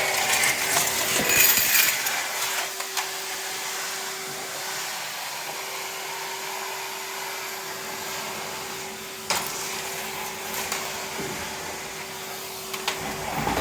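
Vacuum cleaner running with a steady whine and hiss, with crackling and rattling in the first two seconds and a sharp click about nine seconds in.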